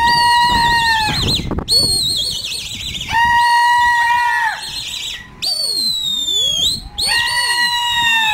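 Loud whistling in a string of held notes, some warbling and one gliding down in pitch, broken by a few abrupt short gaps.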